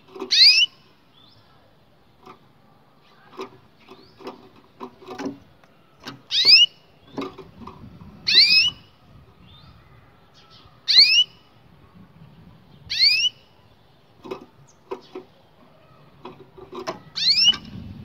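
A domestic canary giving six loud, rising whistled call notes a few seconds apart, each about half a second long. Between them come fainter short clicks and chips.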